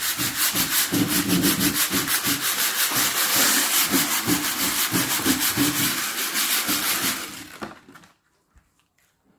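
Fine sandpaper rubbed by hand in quick back-and-forth strokes over the painted top of a wooden bedside table, several strokes a second, knocking back the worn top coat ready for paint. The sanding stops about three-quarters of the way through, leaving only a faint tick or two.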